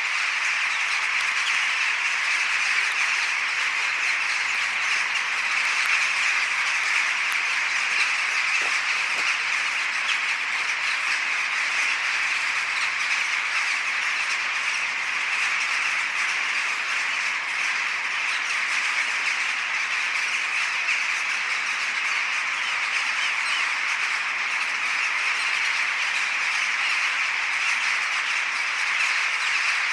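A huge flock of birds calling all at once, a dense, steady din of squawks with no break.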